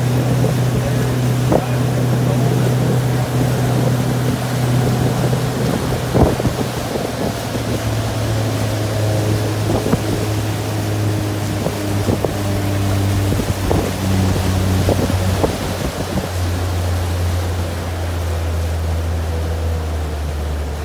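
Pontoon boat's outboard motor running under way, its low drone dropping in pitch in steps during the second half. Wind buffets the microphone and water rushes along the hull, with a few sharp knocks.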